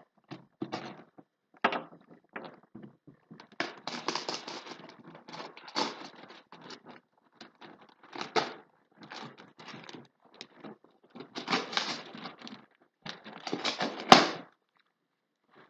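Taped cardboard parcel being pried and torn open by hand: irregular bouts of scraping, ripping and crinkling, with a sharp snap about fourteen seconds in.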